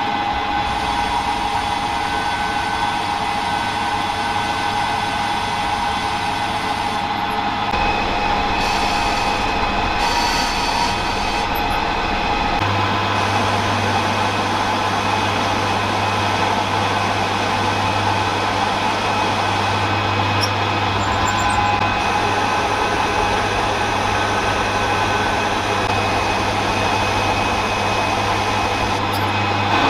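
Metal lathe running, its spindle drive whining steadily, while a carbide insert takes a finishing cut along a steel shaft. The running tone shifts about 8 and 13 seconds in.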